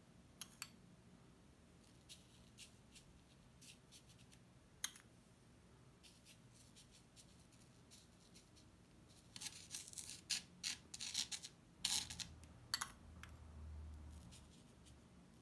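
Metal teaspoon working coloured sand: faint scattered clicks and scrapes as sand is scooped from a ceramic bowl and spread and pressed onto an adhesive sand-painting board, with a busy run of quick scratching about two-thirds of the way through.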